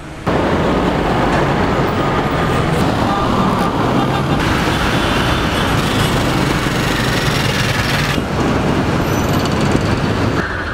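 Dense street traffic, with many small motorcycles and cars passing in a continuous mix of engine noise. It starts abruptly just after the beginning and changes character suddenly around four and eight seconds in.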